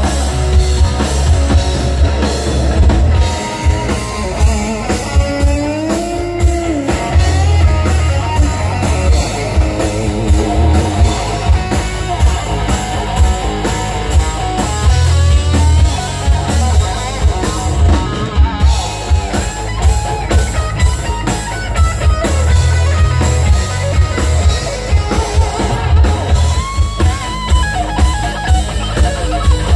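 Live rock band playing an instrumental passage: two electric guitars, bass guitar and drum kit. A guitar line bends in pitch about five seconds in.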